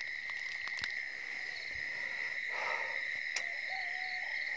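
Night insect chorus: a steady high-pitched drone with a faster pulsing trill above it. A faint wavering call joins about four seconds in, with a brief rustle and a single click just before.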